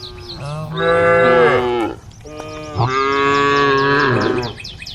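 Cattle mooing: two long, loud moos in a row, calling to the herd. A rapid, evenly repeated high chirping runs behind them, plainest before the first moo and after the second.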